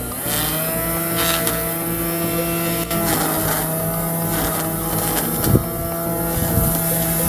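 Ozito 500 W electric line trimmer running, its spinning nylon line cutting long grass. The motor's whine sags briefly in pitch as the line bites into thick grass, near the start and again about three seconds in. There is a sharp tick about five and a half seconds in.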